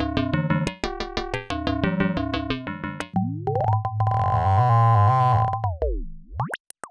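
Make Noise QPAS analog stereo multimode filter playing a fast sequence of short pinged notes under audio-rate frequency modulation. About three seconds in this gives way to a sustained tone whose resonant peaks glide up, hold, then glide back down near the end and cut out briefly.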